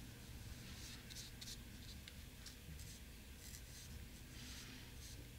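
Faint scratchy strokes of a flat paintbrush's bristles dragged across textured watercolour paper, in short irregular strokes over a steady low hum.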